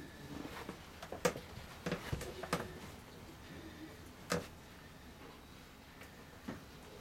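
A few scattered light knocks and clicks in a small enclosed space, the loudest a little over a second in, a cluster around two seconds, and single ones at about four and six and a half seconds.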